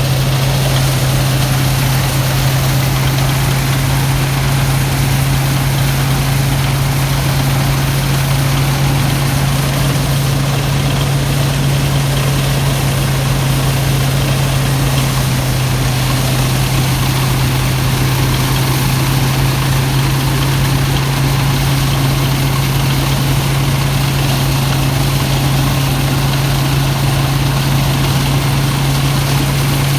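Rice threshing machine running steadily under its engine: a strong low hum that holds one pitch, with dense machine noise spread above it.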